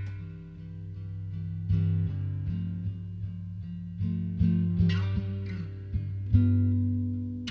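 Takamine steel-string acoustic guitar playing a solo instrumental: low bass notes ring on under single plucked notes higher up, with a strong new bass note struck near the end.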